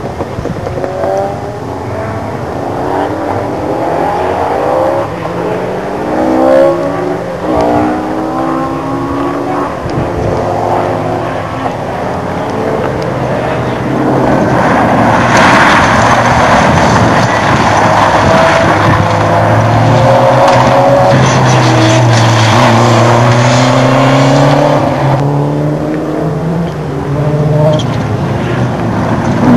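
Rally car engines at full throttle, climbing in pitch again and again through quick gear changes. About halfway a car passes much closer and louder, its tyres hissing over loose gravel and dirt.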